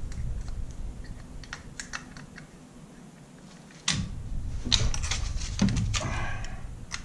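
Light metallic clicks and knocks as a Panzer AR12 Pro shotgun's barrel nut tool is hooked on and the gun is handled on the bench, over a low handling rumble. A sharper knock comes about four seconds in, followed by a few more clicks.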